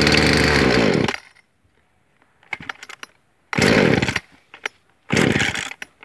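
A Husqvarna chainsaw's cold two-stroke engine fires on a pull of the recoil starter, runs for about a second with its pitch falling, and dies. Two more pulls a second and a half apart turn it over without it catching: with the choke pushed in, the cold engine is hard to start.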